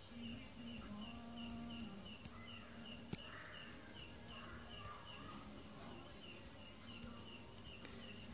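Faint cricket chirping in an even rhythm, a little under three chirps a second, with a sharp click about three seconds in.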